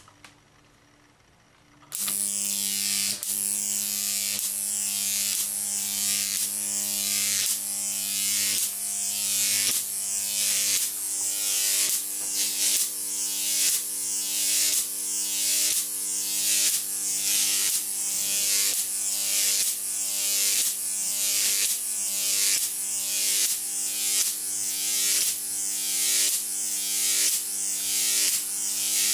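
Jacob's ladder powered by a 10 kV, 23 mA transformer, switching on about two seconds in: a loud electric buzz with a hissing crackle from the high-voltage arc. The sound swells and cuts off about once a second as each arc climbs the rods, breaks and restrikes at the bottom.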